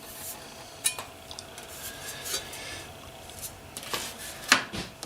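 Metal clinks and scraping as a fiber laser source's metal case is handled and opened, with a sharp knock about a second in and another near the end.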